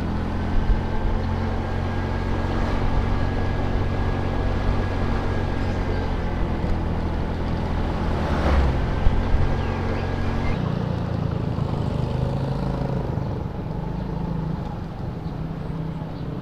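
Small automatic scooter engine running steadily at riding speed, with wind and road noise on the helmet microphone. About ten and a half seconds in, the engine note drops and eases off as the scooter slows. There is a brief louder whoosh about eight and a half seconds in, as an oncoming truck passes.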